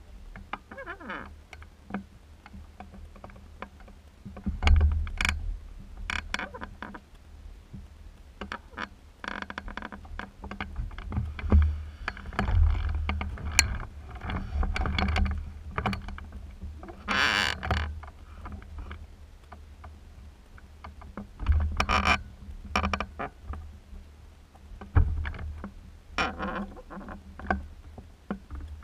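Wind gusting over the microphone in irregular surges, with scattered rustles and small knocks; no engine running.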